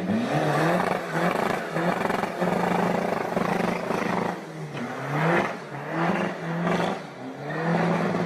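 TDI turbodiesel hatchback accelerating hard away. The engine note rises several times and drops back between gear changes.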